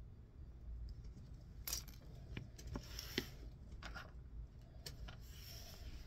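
Scattered sharp clicks and small metallic clinks, about half a dozen, with light rustling, as red-handled cutters are set down on the desk and small parts of a shielded Cat 6 connector are handled.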